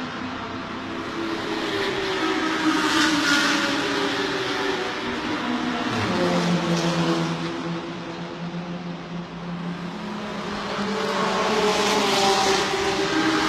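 Racing car engines running at high revs as cars go by, the sound swelling and fading several times, with the engine note shifting about six seconds in.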